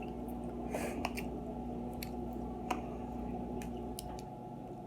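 Sporadic small clicks and squishy sounds of cooked crab legs being handled and eaten, over a steady low hum that fades about four seconds in.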